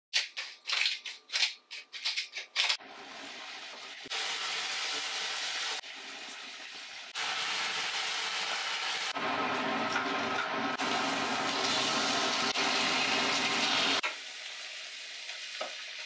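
A wooden spoon clicks and knocks against a ceramic bowl as raw meat is stirred with seasoning. Then sliced meat sizzles steadily in an oiled frying pan while a wooden spatula stirs it, in several segments that start and stop abruptly.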